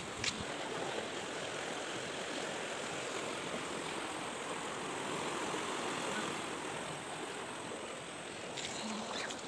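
Steady rush of a fast-flowing, flood-swollen river, with a light click just after the start.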